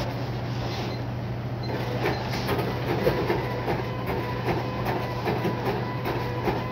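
An order printer buzzing and clicking as it prints, starting about two seconds in and running for about four seconds, over a steady low hum.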